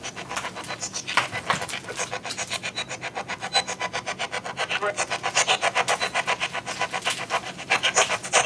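SB11 spirit box sweeping through radio stations: a fast, even stutter of static chopped with broken snatches of broadcast audio, about seven pulses a second.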